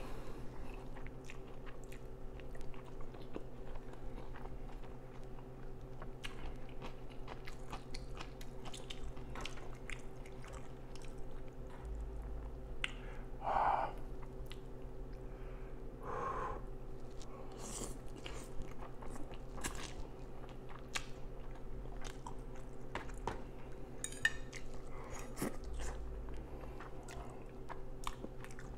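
Close-miked chewing of instant noodles, with many small wet mouth clicks and a couple of louder slurps near the middle as forkfuls of noodles go in. A low steady hum runs underneath.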